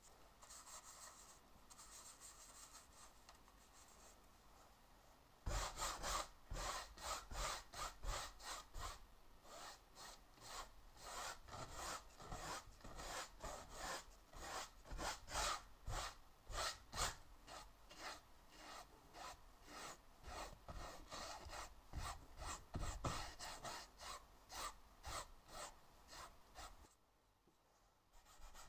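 Paintbrush rubbing over textured canvas: a long run of short back-and-forth strokes, several a second, starting about five seconds in after some fainter brushing and pausing near the end.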